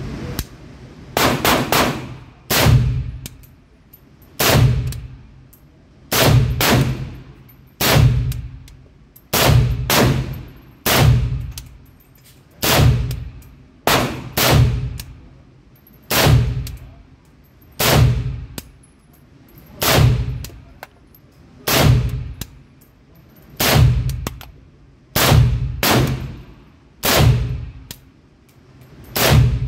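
AK-pattern pistol with a muzzle brake fired semi-automatically in a steady string of about twenty single shots, roughly one every second or so with an occasional quicker pair. Each shot rings and echoes off the walls of an indoor range booth.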